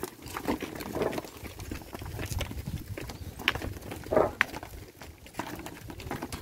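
Hooves of Nelore cattle stepping and shuffling on stony corral dirt: irregular knocks and clatter, the loudest about four seconds in.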